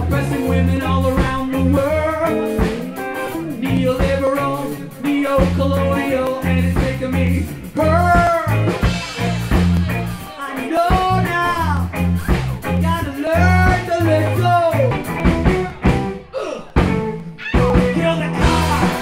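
Live rock band playing: drum kit, electric bass and electric guitar together, with melodic lines bending up and down over a repeating bass pattern. Near the end the playing drops out briefly, then starts again.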